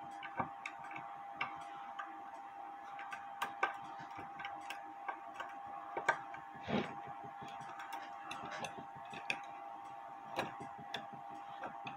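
Bare mechanical clock movement, out of its case and mounted on a test stand, ticking faintly, with small clicks as it is handled and a louder knock about seven seconds in.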